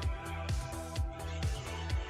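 Electronic background music with a steady kick drum about twice a second over held bass and synth notes.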